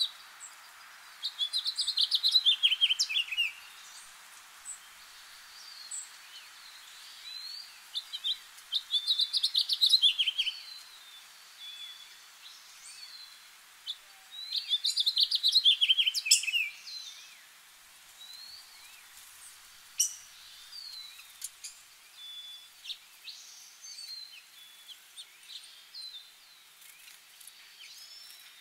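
A songbird singing three loud song phrases several seconds apart, each a quick run of notes falling in pitch and lasting about two seconds, with quieter scattered chirps in between.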